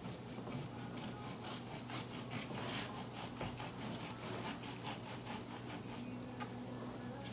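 A serrated kitchen knife sawing back and forth through a raw beef roast on a cutting board, in soft strokes about three times a second.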